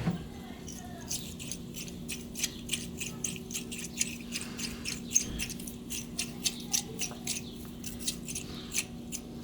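Small, irregular clicks and ticks, a few a second, as the idle air control valve's motor part is handled and washed in solvent, over a steady low hum.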